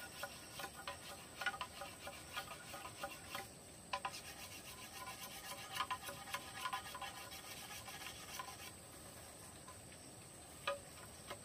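Machete blade scraping the outer skin off a bamboo pole in quick, short, rasping strokes. There is a brief pause near the middle, and the strokes thin out near the end.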